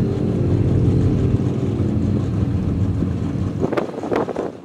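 Off-road racing truck's engine running hard at high revs with a steady pitch, then fading out near the end, with two short sharp cracks as it fades.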